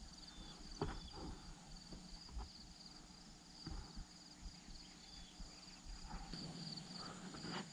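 Insects chirping steadily in a high, rapidly pulsing trill, with a few faint knocks about a second in and near four seconds.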